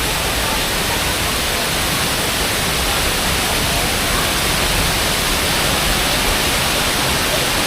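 Water from a small spring-fed waterfall pouring close to the microphone, a loud, steady rushing hiss with faint voices underneath.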